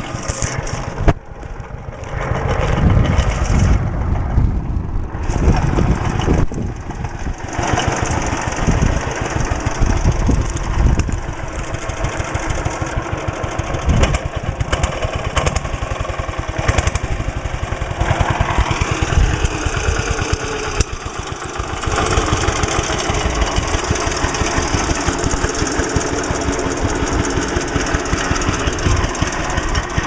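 The Trusty tractor's 5.5 hp JAP single-cylinder engine running with rapid, even firing, dipping briefly about a second in and otherwise holding a fairly steady level.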